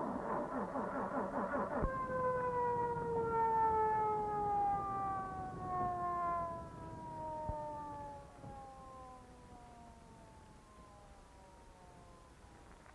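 Police car siren winding down after a click about two seconds in, its wail falling slowly in pitch and fading out over about nine seconds, with car engine noise under the first two seconds.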